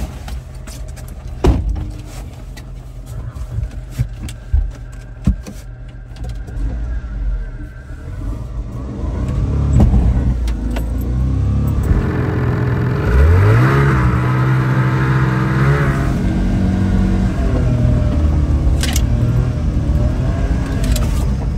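Mini truck engine heard from inside the cab, idling with a few knocks. About ten seconds in it gets louder, then revs up with a rising pitch, holds high for a few seconds and eases back, as the tracked truck strains to get out of deep snow.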